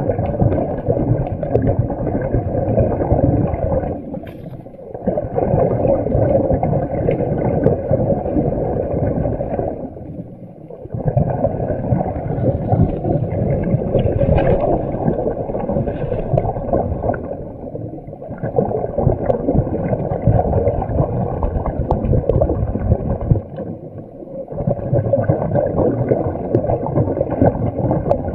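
Underwater bubbling and rushing from a diver's exhaled air, in long stretches broken by short pauses about every six seconds.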